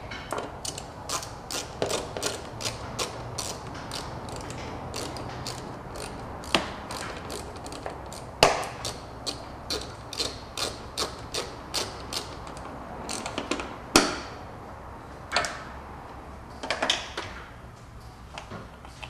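Hand ratchet wrench clicking in quick runs as the coil-cover nuts are run down and snugged to about 7 foot-pounds. Several louder single knocks come about a third of the way in, midway and near the end.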